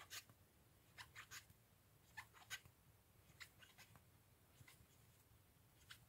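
Near silence with faint, irregular small ticks as a metal crochet hook works yarn in single crochet stitches.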